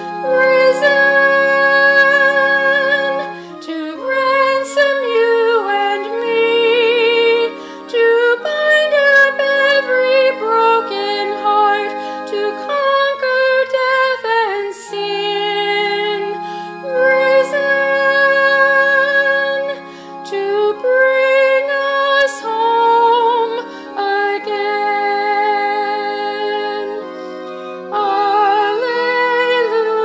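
Slow Easter hymn: a woman's solo voice sings 'risen' at the start over steady held accompaniment chords. A wavering melody line with vibrato carries on over the chords, mostly without clear words.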